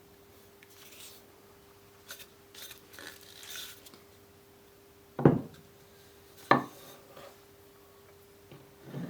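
Light scraping and rubbing, then two sharp knocks a little over a second apart as a hammer strikes. A smaller knock follows near the end.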